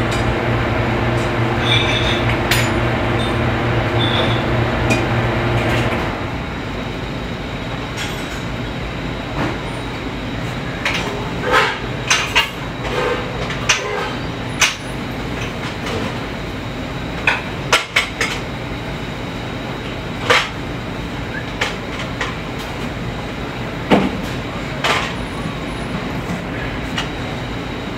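Commercial kitchen line at work: a steady rushing noise from the exhaust hood and the loaded flat-top griddle, with scattered clinks and clanks of utensils, pans and plates. A low machine hum runs under it and cuts off about six seconds in.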